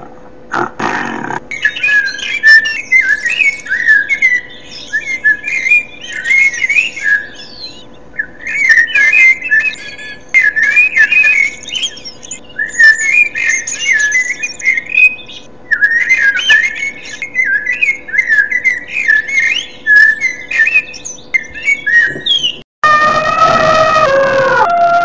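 Bird song: phrases of quick high chirps and whistles, repeated with short pauses, over a faint steady hum. A low growl fades out about a second in, and near the end a long howl falling in pitch takes over.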